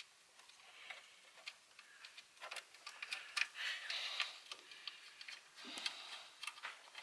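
Faint, irregular small metallic clicks and ticks of a 10 mm nut and hand tools being worked onto an alternator's power-cable terminal stud.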